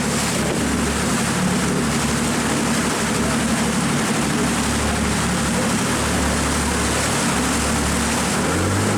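Jet boat running at speed: a steady engine drone under rushing water, with wind buffeting the microphone.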